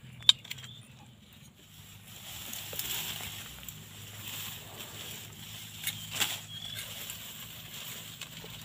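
Machete blade scraping and tapping on thin bamboo sticks while they are whittled, with one sharp knock about a third of a second in and a few smaller clicks later. A faint steady low hum runs underneath.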